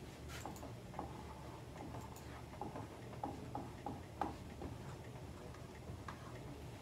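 Faint, irregular clicks of typing on a computer keyboard and clicking a mouse, sparser after about four seconds, over a low steady hum.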